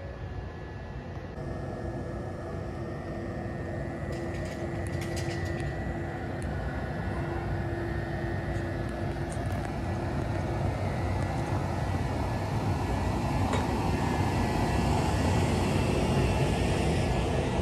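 Ohmi Railway 100-series electric train standing at the platform, its on-board equipment running with a steady hum. The hum grows louder toward the end.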